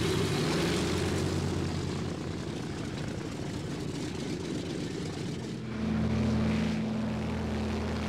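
Propeller airplane engines running with a steady drone; the engine note shifts about six seconds in.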